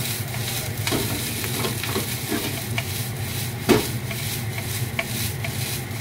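Fried rice sizzling in a frying pan while it is stirred and tossed with a wooden spatula, with scattered scrapes and knocks of spatula and pan. A louder knock comes a little past halfway.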